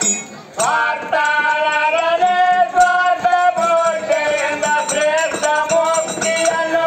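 Live dollina pada folk music: a held, stepping melody line over a barrel drum and rattling, jingling percussion. The music drops away briefly just after the start and comes back in about half a second in.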